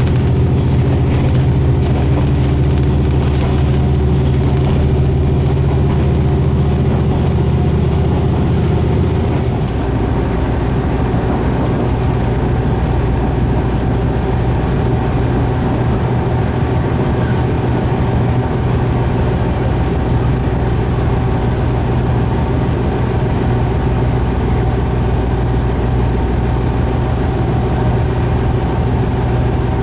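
Diesel railcar engine running steadily under way, with a steady drone of several tones; its low tones shift about nine and a half seconds in, as the engine changes speed or notch.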